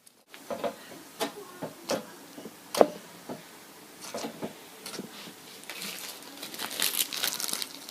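Slime being handled and squeezed, giving a string of sticky clicks and pops, with one sharp pop about three seconds in and denser crackling near the end.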